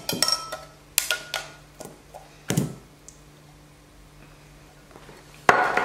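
A metal tin of tuna tapped and tipped against a ceramic bowl as the tuna chunks drop in: several sharp knocks over the first two and a half seconds, the loudest about two and a half seconds in. A brief rustling noise comes near the end.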